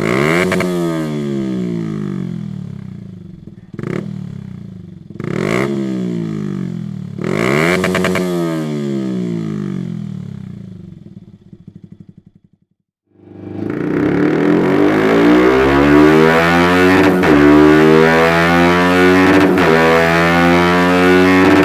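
Yamaha YZF-R125's 125 cc single-cylinder four-stroke engine through a Dominator full exhaust system: four quick throttle blips, each rev falling away. After a brief drop-out about halfway through, it pulls in one long, steadily rising run up the rev range, as on a dyno.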